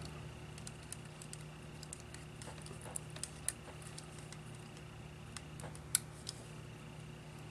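Faint, scattered small clicks and taps of tiny Walkman parts being handled and fitted back together, over a steady low hum. A couple of sharper clicks stand out midway and about six seconds in.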